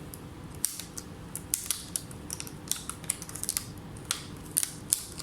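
Irregular light clicks and taps, about a dozen, from small tools and parts being handled during laptop board repair, over a faint steady hum.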